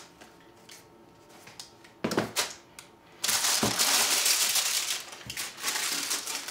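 Shoebox tissue paper rustling and crinkling as it is gathered and folded by hand, loud and continuous for the last few seconds, after a few light knocks and rustles about two seconds in.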